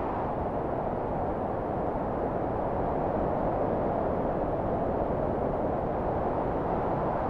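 Recorded wind sound effect: a steady rush of wind whose pitch sinks slowly, then climbs again near the end.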